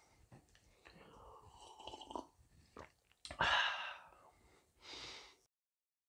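A person slurping a sip of hot coffee, then letting out a loud, breathy sigh about halfway through, with a shorter breath near the end before the sound cuts off suddenly.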